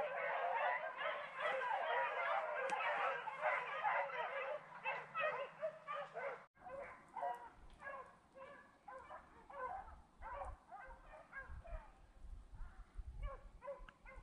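A pack of beagles baying as they run a rabbit's trail, many voices overlapping. About six and a half seconds in, the sound cuts to fainter, more spaced-out baying, with wind rumbling on the microphone.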